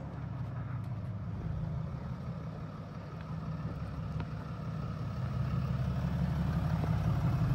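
An engine running at a steady speed, a low rumble that grows a little louder over the last couple of seconds.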